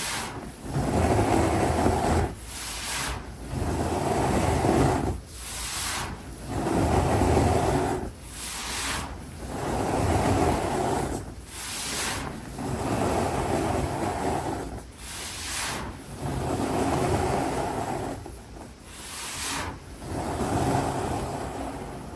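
Pressed baking soda blocks being crushed and squeezed, a crunchy, squeaky crumbling repeated in even strokes about every two seconds.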